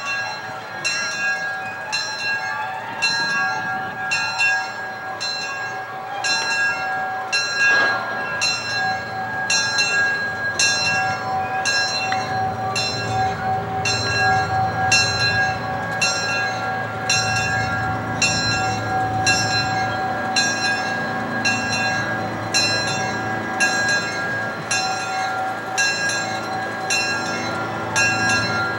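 Locomotive bell ringing steadily, about one strike a second, over the low rumble of the small 0-4-0 locomotive's ride train rolling along.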